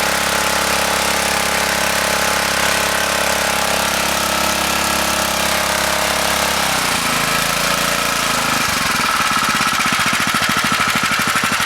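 Small carburetted petrol engine running steadily, its carby freshly cleaned and now running properly. About seven seconds in its speed drops and it settles into a lower, evenly pulsing idle.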